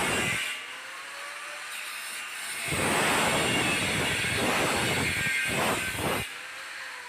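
Metalworking on steel: a loud, rough hiss that stops about half a second in, starts again after a couple of seconds and runs for about three and a half seconds before cutting off. In the quieter gaps a faint thin tone can be heard.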